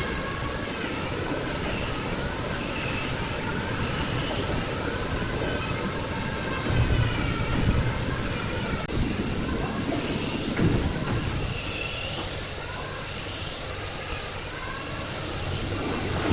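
A large woodworking machine running, with a dense grinding noise and a wavering high-pitched squeal over it, and a few heavier knocks partway through.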